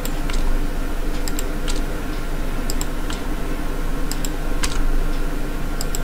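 About ten short, sharp computer mouse clicks at irregular intervals, several in quick pairs, as control points on a 3D model are clicked away. A steady low hum runs underneath.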